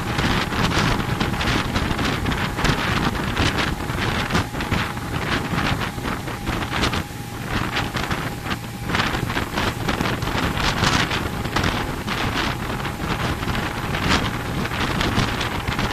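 Wind buffeting the microphone in gusts over the steady running of a motorboat's engine and the rush of its churning wake.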